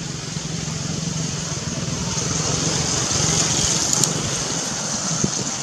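Steady outdoor background noise: a low, engine-like hum under a high hissing drone that swells through the middle and then eases, with a faint click about four seconds in.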